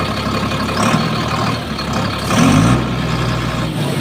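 Heavy vehicle engine idling steadily, with a louder, deeper-pitched stretch for about a second starting two and a half seconds in.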